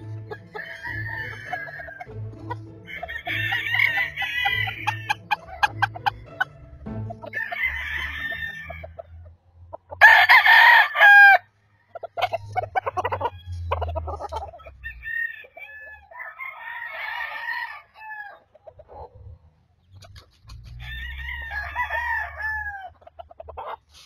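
Roosters crowing, about six crows a few seconds apart, the loudest about ten seconds in, with short clucks between them.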